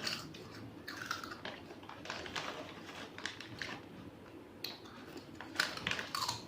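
Crisp snack crackers being crunched and handled, a run of irregular crunches and crackles.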